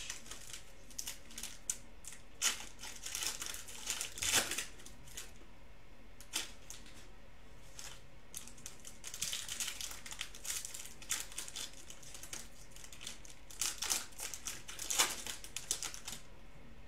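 Foil trading-card packs and cards handled by hand: irregular crinkling and rustling with sharp clicks, in two busy spells with a quieter lull between.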